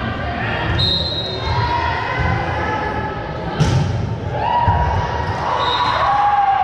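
Volleyball play on a gym floor: the ball hit with a sharp smack about halfway through, repeated dull thuds of ball and feet on the court, two short high squeaks, and players' voices calling out.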